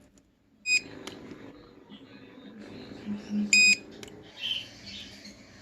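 Two short electronic beeps, the first under a second in and a longer one near the middle, over a low background hum and clatter.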